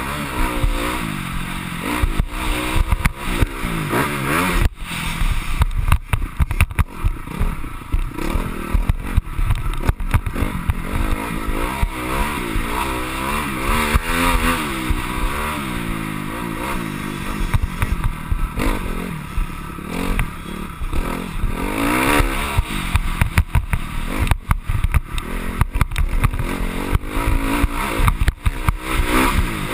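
Honda CRF250R four-stroke single-cylinder dirt bike engine at full riding load, its pitch rising and falling again and again as the rider accelerates, shifts and backs off over the jumps. Frequent short knocks and rattles from the bumps run through it.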